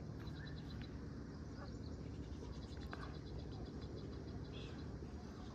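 A rapid, high-pitched pulsing trill from a small animal, heard in two spells of about a second and a half each, over a steady low rumble.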